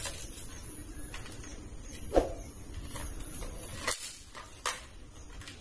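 A few short plastic clicks and knocks from a toy AK-47 rifle being handled, over a steady background hiss.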